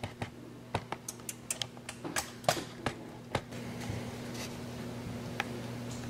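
Scattered light clicks and taps over the first three seconds or so, over the steady low hum of a running electric wall oven. The hum grows slightly louder from about three and a half seconds in.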